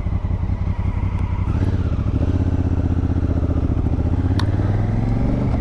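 Honda Africa Twin CRF1000L's parallel-twin engine running steadily at low revs, its note growing a little fuller about two seconds in. A short click near the end.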